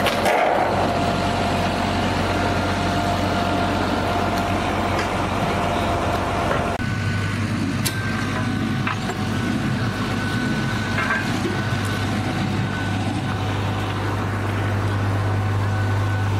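Pulling tractor engines idling steadily as the machines roll slowly at low speed. About seven seconds in the engine sound changes abruptly as a different machine, a John Deere 8330 pull tractor, takes over.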